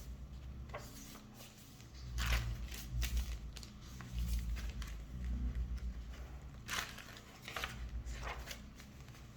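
Paper pages and card inserts of a handmade junk journal being turned and handled: several short paper rustles and crinkles, with a low rumble underneath.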